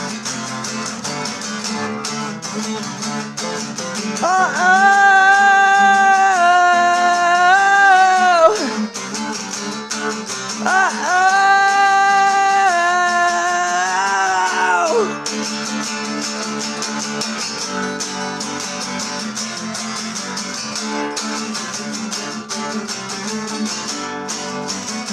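Acoustic guitar playing steadily, with two long held wordless vocal notes over it, the first about four seconds in and the second about ten seconds in, each lasting four to five seconds.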